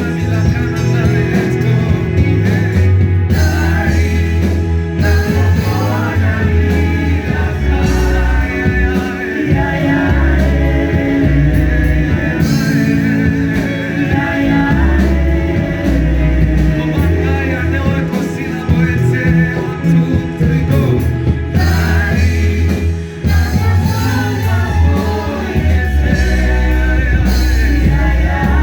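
Gospel worship music with singing over a band with heavy bass notes, played loud through the church's sound system.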